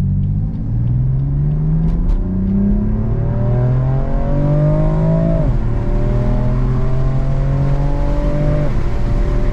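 A car engine accelerating hard, its note climbing steadily, then dropping sharply twice as it shifts up through the gears.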